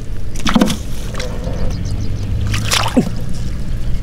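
A small engine running steadily as a low drone, with a few sudden noisy sounds over it.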